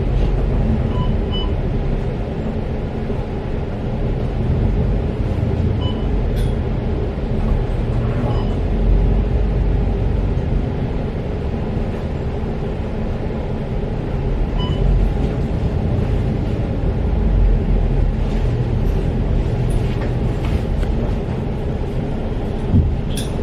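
Interior of a moving city bus: steady engine and road rumble, with a few short beeps.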